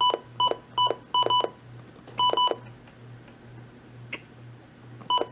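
Midland WR300 weather radio's key beeps as its alert log is scrolled through button by button: about eight short, identical high beeps at irregular spacing, some in quick pairs, with a faint click about four seconds in.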